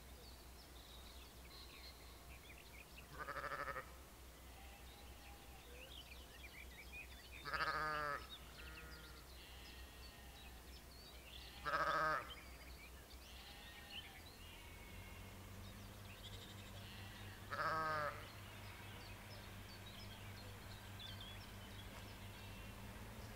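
Sheep bleating four times, each call about half a second long, over faint birdsong. From about two-thirds of the way in, the low steady drone of a distant diesel locomotive engine comes up.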